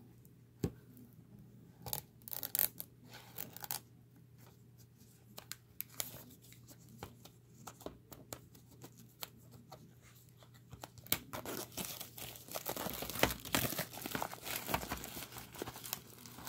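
Hands handling a Blu-ray box set, with scattered light taps and clicks. From about eleven seconds in, continuous crackling as the plastic shrink wrap is torn and peeled off.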